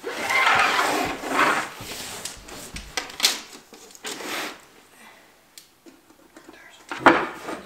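Scraping and rubbing on a plywood floor as a steel tape measure is drawn out along a spirit level, with a few light clicks. A single sharp knock near the end is the loudest sound.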